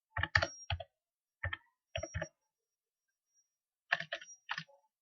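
Computer keyboard typing: short bursts of key clicks with pauses between, a few clicks at a time.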